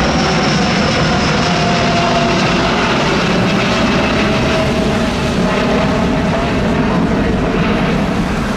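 Airbus A330-900neo's Rolls-Royce Trent 7000 turbofans running loud and steady at takeoff thrust, with a whine whose tones slowly fall in pitch.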